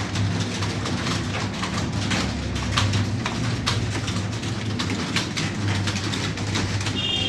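Computer keyboard being typed on, fast irregular keystroke clicks, over a low hum.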